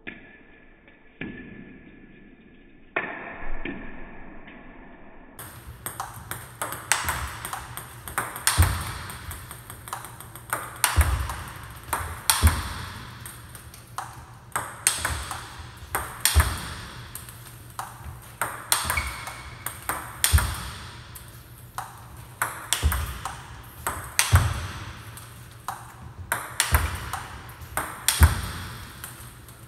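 Table tennis ball clicking off racket and table in a multiball drill: a run of short, sharp ball clicks, with a harder crack of a forehand smash every two seconds or so.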